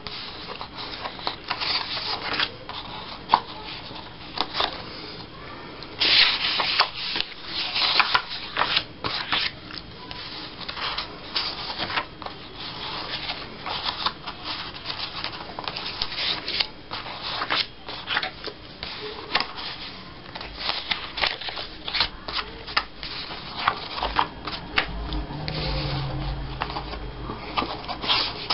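Stacks of paper and cardstock border strips handled and leafed through by hand: irregular rustling, sliding and flicking of paper.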